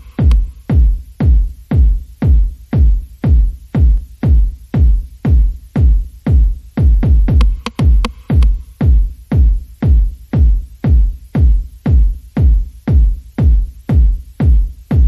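Electronic background music with a heavy, steady kick-drum beat, about two beats a second.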